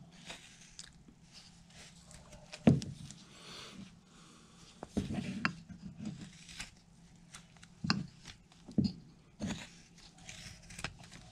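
A carving knife slicing and paring basswood in a series of short, irregularly spaced cuts, each a brief scraping crackle as the blade shears the wood, the sharpest about a third of the way in.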